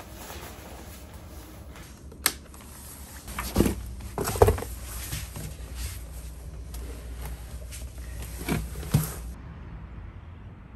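A sharp click about two seconds in, then dull thumps and knocks in a small room, the loudest pair around the middle and two more near the end.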